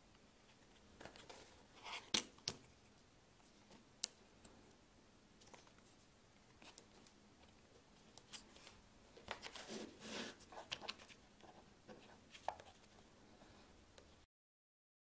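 Hands handling a small 3D-printed plastic part on a cardboard notebook cover: scattered light clicks and knocks, the sharpest about two seconds in, and a short stretch of rustling about ten seconds in. The sound cuts to dead silence just before the end.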